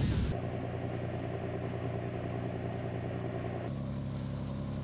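Small motorboat's engine running steadily, a constant hum heard from aboard. The hum changes abruptly twice, about a third of a second in and again about three-quarters of the way through.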